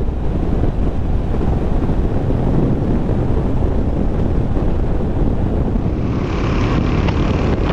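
Wind buffeting the microphone over the steady rumble of a vehicle driving. Near the end a higher hiss joins in.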